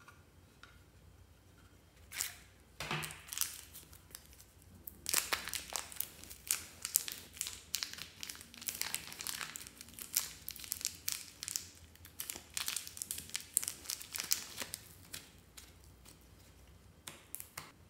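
Thin plastic film crinkling and crackling as it is peeled away from a lump of green slime: a few crackles about two seconds in, then a dense run of fine crackling for about ten seconds that thins out near the end.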